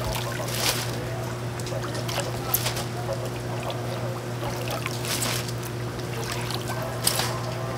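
Water splashing and trickling in a live-fish tank as a gloved hand scoops fish out, with several short splashes over a steady low hum.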